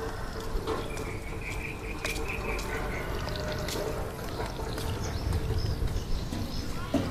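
Water being poured onto the soil of potted plants during watering, a steady pouring sound.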